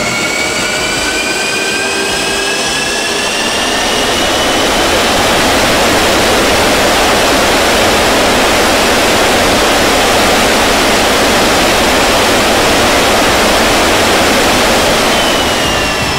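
X-47B's Pratt & Whitney F100 turbofan engine spooling up during a ground run: a rising whine gives way to a steady, loud jet roar that builds about four seconds in.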